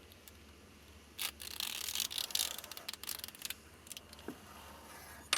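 Small tools clicking and scraping against a plastic Molex connector: a sharp click about a second in, then about two seconds of dense clicking and scraping, a few scattered clicks, and another sharp click near the end.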